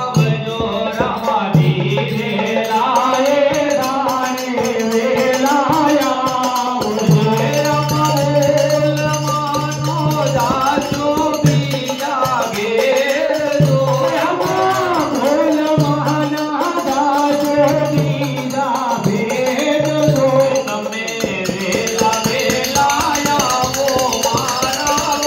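A man singing a melody over music with percussion and a low sustained note that comes and goes.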